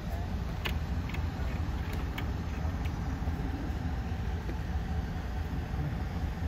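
Steady low outdoor rumble, with a few faint clicks about a second in and again around two and three seconds.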